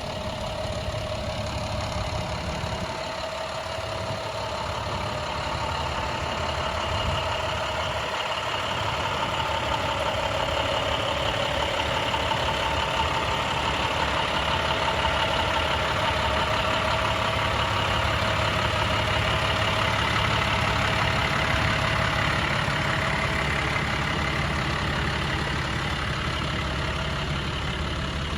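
International 7400's MaxxForce DT turbo diesel engine running steadily, with a whine in several pitches that drifts slightly and grows gradually louder over the stretch.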